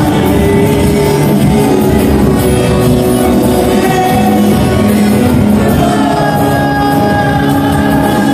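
Live gospel worship band with electric guitars and bass playing loudly, with singing over it. The music runs on steadily with long held notes.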